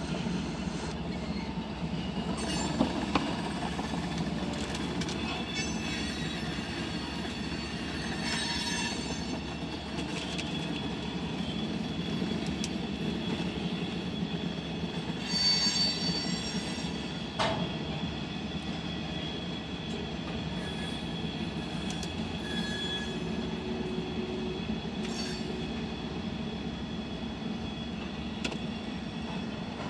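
Freight train of tank cars and covered hopper cars rolling past: a steady rumble of steel wheels on rail, with thin high wheel squeals that are sharpest about halfway through, and a couple of sharp clicks.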